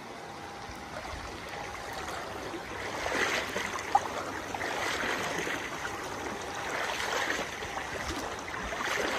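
Floodwater flowing and splashing across a flooded street, swelling in waves from about three seconds in, with one sharp click about four seconds in.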